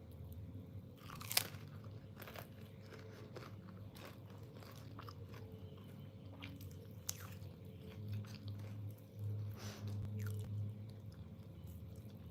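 Close-miked eating of whole chicken: biting and chewing, with a few short sharp clicks, the loudest about a second and a half in.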